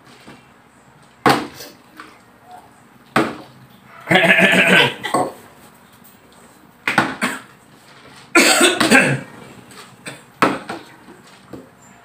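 A partly filled plastic water bottle being flipped and landing on a table, giving a series of about four sharp thuds. Two longer, louder noisy bursts come between them, one about four seconds in and one about eight seconds in.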